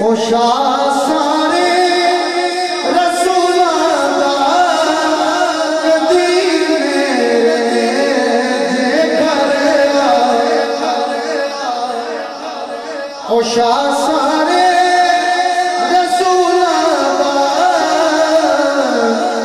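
A man singing a naat into a microphone in long, drawn-out melismatic phrases whose pitch glides up and down. One phrase fades about twelve and a half seconds in, and the next starts loudly less than a second later.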